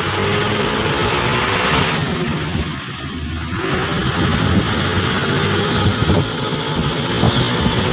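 A moving vehicle's engine running steadily under a constant rush of road and wind noise, heard from on board.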